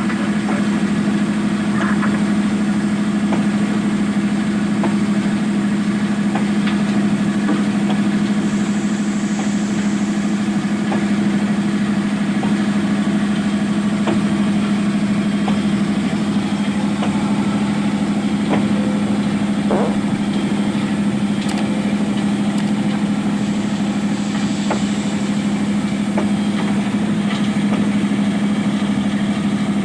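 Heavy machine's engine running at a steady speed: a constant low drone with no revving, with a few faint clicks and knocks over it.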